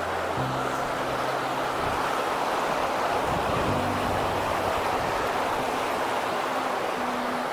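Small moorland beck rushing over stones beneath a wooden footbridge: a steady wash of running water.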